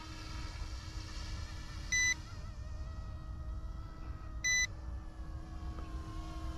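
Radio transmitter's low-battery alarm beeping, two short high beeps about two and a half seconds apart, warning that the helicopter's flight battery is nearly empty. Under it is the faint, wavering whine of the RC helicopter's brushless motor and rotor in the distance.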